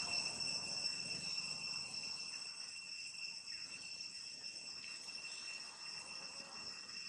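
Steady, high-pitched insect chorus droning without a break, with soft rustling of a plastic bag as a young macaque handles it.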